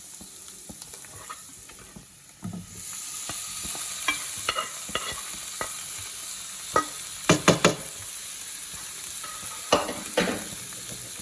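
Boiled chicken liver sizzling in a hot pan of fried onion and spice masala; the sizzle grows louder about three seconds in as the liver goes in. A spatula knocks and scrapes against the pan throughout, with three quick loud knocks a little past halfway and two more near the end.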